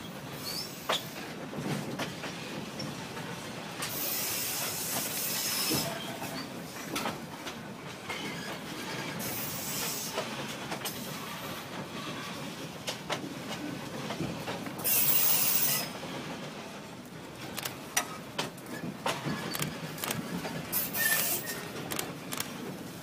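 Passenger train carriage rolling across a steel trestle viaduct: irregular clicks and knocks from the wheels and carriage over a steady rumble of rolling noise. Four bursts of hiss, each a second or two long, come through along the way.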